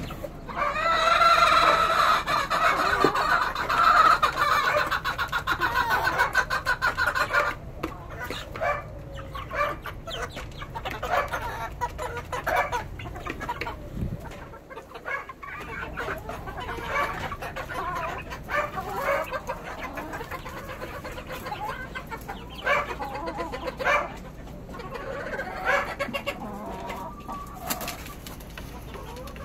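A flock of chickens, roosters and hens, clucking and calling. The calling is loud and continuous for the first several seconds, then breaks into scattered clucks and short calls.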